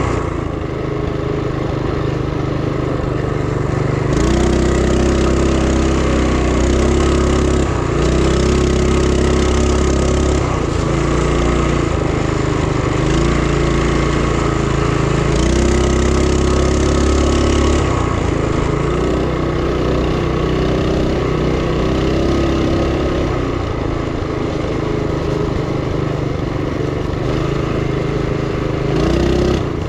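Duromax 212cc single-cylinder four-stroke engine of a mini bike, running on propane under way. Its speed rises and falls several times as the throttle is opened and eased off.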